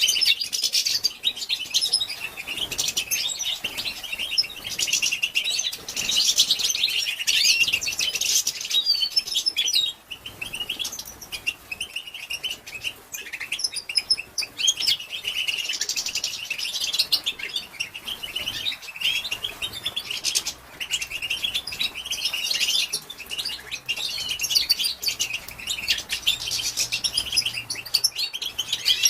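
European goldfinches twittering, a dense high-pitched chatter of rapid chirps with short lulls about ten and nineteen seconds in. This is the female goldfinch's chattering call, used to rouse male goldfinches into song.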